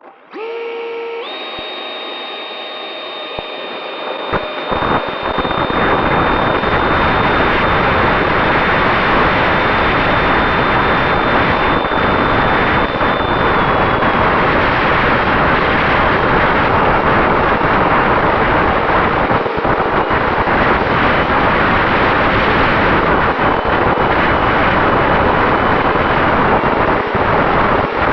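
Onboard sound of a Freewings Cobra electric ducted-fan RC jet: the fan spools up with a whine that rises in steps, then holds a steady high whine. From about five seconds in, loud wind rush over the airframe and camera joins it and largely covers it.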